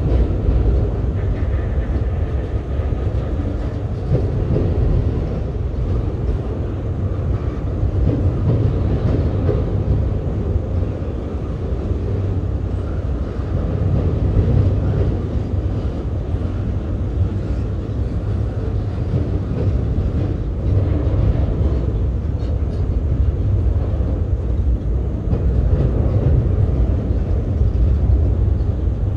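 Freight train rolling past with a steady low rumble.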